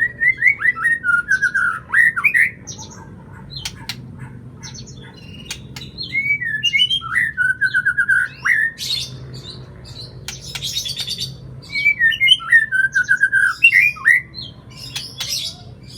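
White-rumped shama (murai batu) singing: phrases of quick repeated whistled notes alternate with harsh rasping notes, with short pauses between the phrases.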